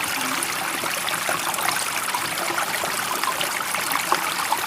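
Flowing water rushing and trickling steadily, an even hiss with fine bubbling detail and no rise and fall of waves.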